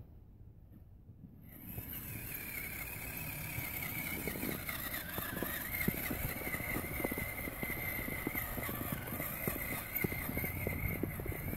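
Traxxas Summit RC truck's electric motor and drivetrain whining steadily as it churns through snow, starting about two seconds in. Scattered crunches and clicks run under the whine.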